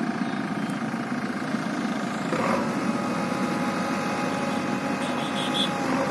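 JCB 3DX backhoe loader's diesel engine running steadily, its note changing about two seconds in.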